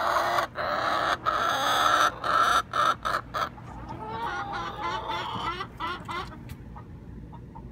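Domestic hens squawking and clucking loudly, in a run of drawn-out calls for the first few seconds, then more calls that die down to quieter clucking near the end.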